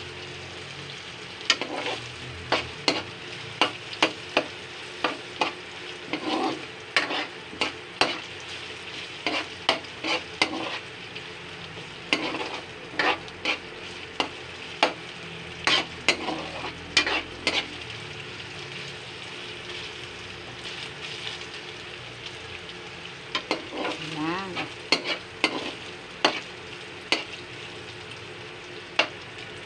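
Ground pork with onion and garlic sizzling in a metal wok as it is browned, stirred with a metal ladle: repeated scraping strokes of the ladle against the pan over a steady sizzle. The stirring pauses for a few seconds around the middle, leaving the sizzle alone.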